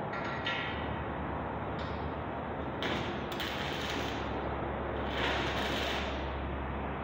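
Stick-welding arc crackling and sizzling in three short bursts as rods are struck and run on the steel platform of a hand trolley, over a low steady hum.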